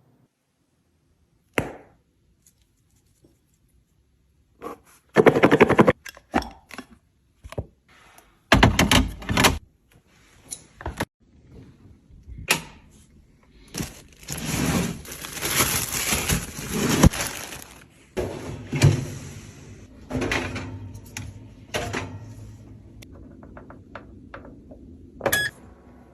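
Food containers and packaging handled during restocking: a run of knocks, clinks and thunks as items are picked up and set down. About halfway through there is a longer stretch of scraping and rustling.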